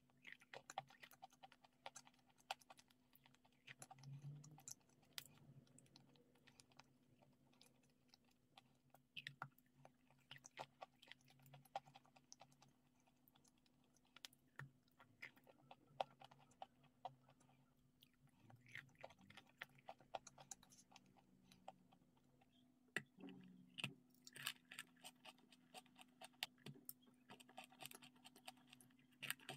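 Close-up biting and chewing of crumbly grey clay: quiet, with many small sharp crackles and crunches, coming thickest in the last few seconds.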